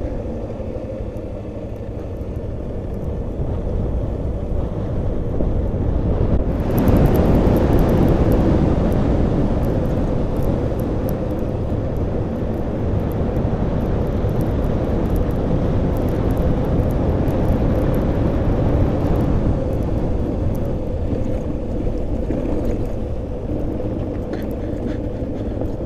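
Motorcycle engine running steadily at cruising speed, with wind and road noise on the microphone that grows louder about six or seven seconds in.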